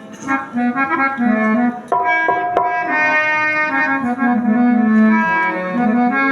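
Instrumental interlude: a reed instrument plays a held, moving melody over a lower accompanying line. A sharp strike cuts in about two and a half seconds in.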